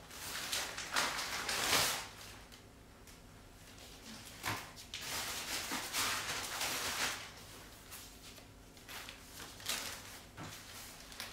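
Plastic shopping bag rustling and crinkling as groceries are lifted out of it and set down on a counter, in bursts, with a few light knocks.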